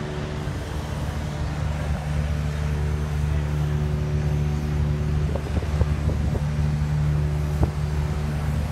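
Sugar mill cane-handling machinery running with a steady low drone. A clatter comes about five seconds in, and a sharp knock near the end.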